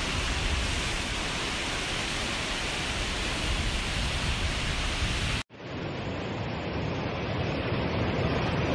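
Steady rushing of a torrential muddy flood river, a dense noise with no separate events. It cuts off abruptly about five and a half seconds in and comes straight back, a little duller.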